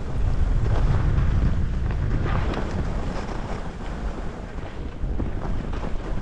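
Wind rushing and buffeting over the microphone during a downhill run on a ski slope. A few brief scrapes of edges on snow come through, one pair about two and a half seconds in.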